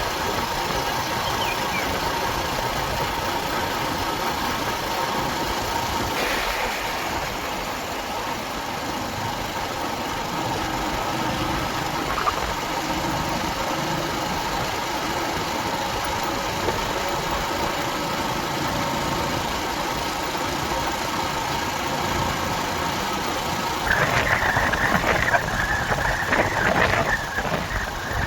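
Motorcycle engine running steadily while riding along a road. Near the end a higher-pitched steady tone joins for about three and a half seconds.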